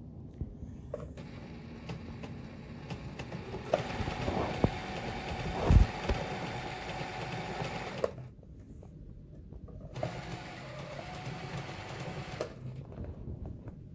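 Elna 9000 computerized sewing machine running with a steady motor whine, in two spells: a longer, louder run with a thump about six seconds in, then a shorter run near the end.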